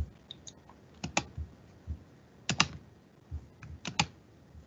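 Sharp clicks of computer keys being pressed, mostly in quick pairs about a second and a half apart, with a few soft low bumps between them.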